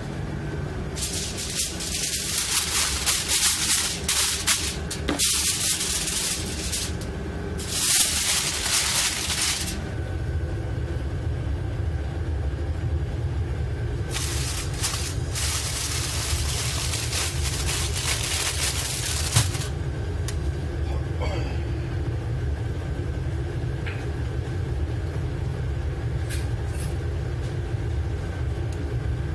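Steady low rumble of the dredger's onboard machinery, with three long bursts of hissing noise over it, the last ending about twenty seconds in.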